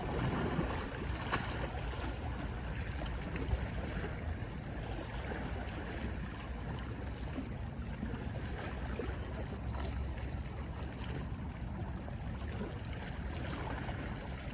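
Sea water washing steadily against the shore, with a low rumble underneath.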